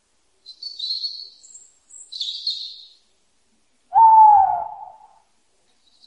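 Bird calls: two high, scratchy chirps in the first three seconds, then a louder, lower hooting call about four seconds in that falls slightly in pitch.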